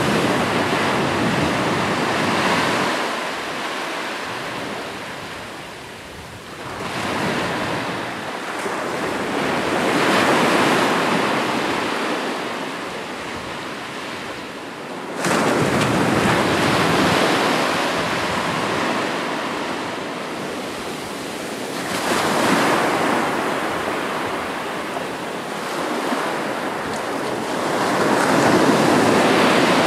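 Ocean surf, waves breaking and washing back in surges that swell and fade every several seconds. One surge sets in abruptly about halfway through.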